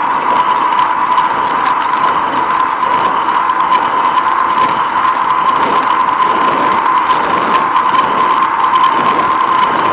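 Bicycle riding along a paved path: a steady mechanical whir with a constant high-pitched whine, without a break.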